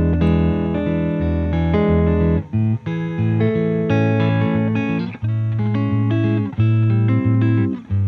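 Guitar-led background music: held notes and chords over a bass line, with a few brief breaks in the sound.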